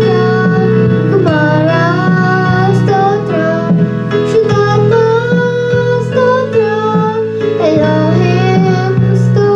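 A teenage boy sings a Telugu worship song to the accompaniment of a Yamaha electronic keyboard. His melody glides between sustained chords.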